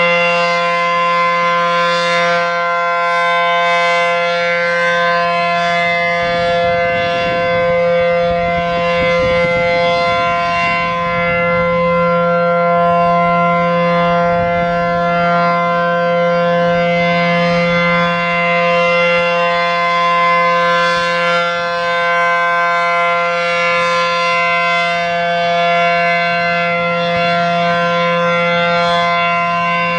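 A.C.A. P-10 outdoor warning siren sounding its Full Alert signal: one loud, steady tone held at constant pitch.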